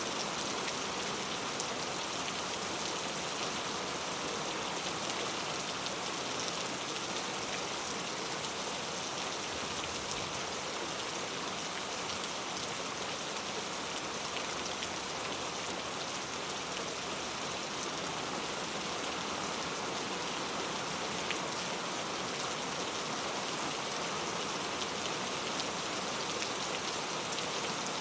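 Steady rain falling into a puddle, an even hiss with many small drop ticks and no thunder.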